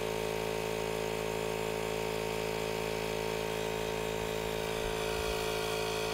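Electric air pump running steadily with an even hum, pushing air at about 110 PSI into a Tesla Model S's front air suspension to lift the sagged car.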